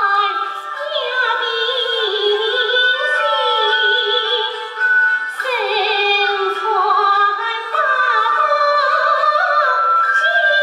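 A woman singing Yue (Shaoxing) opera in a high, wavering voice, in several drawn-out phrases, over held notes from a traditional Chinese instrumental accompaniment.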